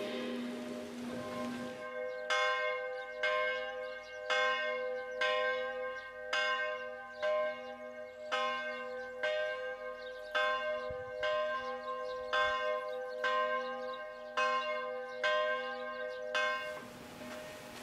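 Church bell rung in quick repeated strokes, roughly one or two a second, starting about two seconds in and stopping near the end.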